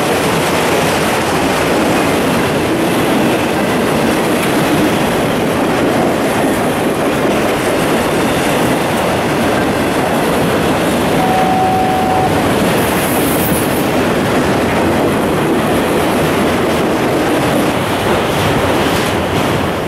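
Autorack freight cars rolling past, a steady rumble and clatter of steel wheels over rail joints, with a brief squeal about eleven seconds in.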